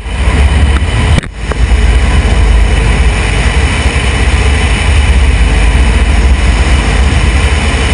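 UH-60 Black Hawk helicopter running: loud, steady rotor and turbine noise with a deep low pulsing, briefly dipping about a second in.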